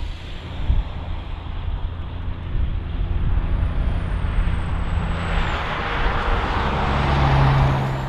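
Low, steady rumble of a Canadian Pacific freight train's diesel locomotives and rolling cars mixed with highway traffic; a passing road vehicle swells up and fades near the end.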